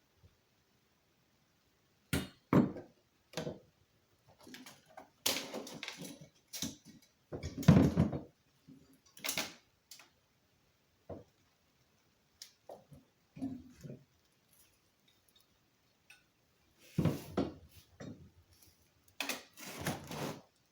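Irregular knocks, clicks and clatter of small hard objects being handled and set down, in separate short bursts with quiet gaps between; the loudest knock comes near the middle.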